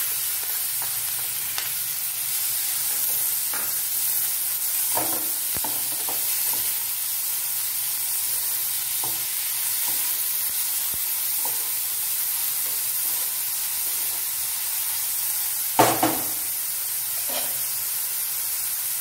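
Chopped onions sizzling steadily as they fry in hot oil in a pan. A spoon stirs and scrapes them against the pan now and then, with a louder clatter near the end.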